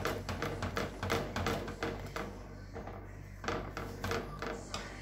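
Silicone spatula stirring thick white sauce in a stainless steel saucepan: irregular scraping and tapping strokes against the pan, in quick runs with a pause of about a second in the middle.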